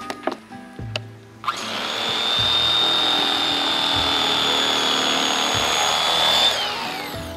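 Electric fillet knife motor switched on about a second and a half in, running with a steady high whine while it cuts, then winding down in pitch near the end as it is switched off.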